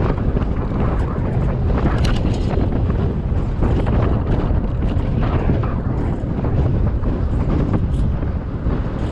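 Steady wind noise buffeting the microphone of a camera on a moving bike, with a low rumble throughout.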